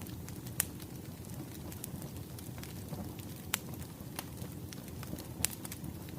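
Burning firewood crackling: scattered sharp pops over a steady low rumble.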